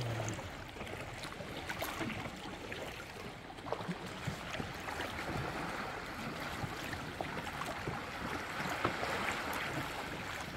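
Water sloshing and splashing around a kayak as it is paddled, with small drips and splashes from the paddle blade scattered through an even wash of water sound.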